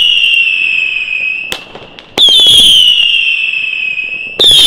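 Katan Screamer Q firework battery firing salvos of whistlers: several loud, shrill whistles at once, each falling slightly in pitch as it fades. A new salvo goes off about two seconds in and another near the end, with a single sharp crack just before the second.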